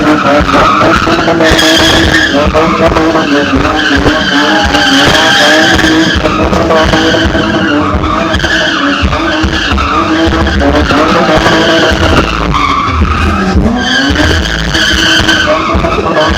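A car drifting: its engine held at high revs, the pitch rising and falling as the throttle is worked, over the steady rush of tyres skidding across the pavement.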